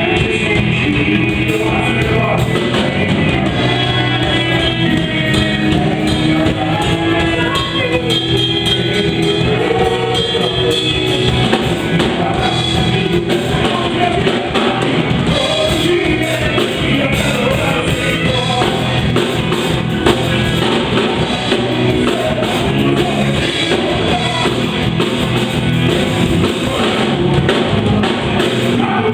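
Worship band playing an upbeat song with singing, drum kit and guitar.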